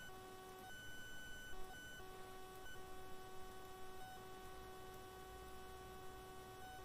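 Faint electrical hum with a whine of steady tones that cut out and come back in several times, over low hiss.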